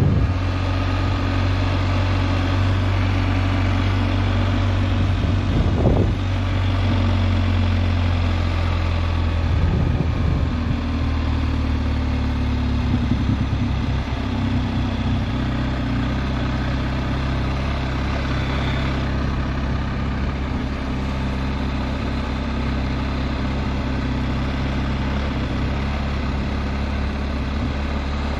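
BMW R1250GS Adventure's boxer twin running at low revs: a steady low engine hum whose pitch shifts slightly about ten seconds in and again around fifteen seconds.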